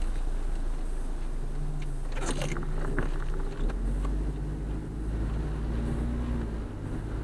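Car cabin noise on a wet road: a steady low engine and tyre rumble, with one windshield wiper sweep swishing across the rain-covered glass about two seconds in.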